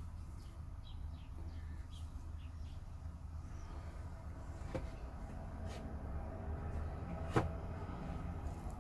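Quiet room hum with a few light handling clicks and taps, the two sharpest about five and seven and a half seconds in, and faint bird calls in the background.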